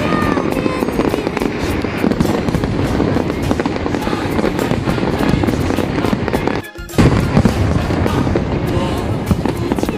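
Fireworks going off in quick succession, dense bangs and crackling mixed with music. The sound breaks off for a moment about seven seconds in.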